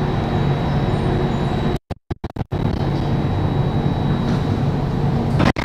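Steady low rumble and hum inside a Singapore MRT Circle Line train car, with a faint high steady tone. The sound drops out briefly about two seconds in.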